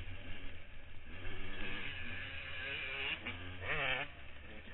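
Motocross dirt bike engine running hard under throttle, heard from the rider's helmet-mounted camera, with a brief wavering rise and fall in engine pitch near the end.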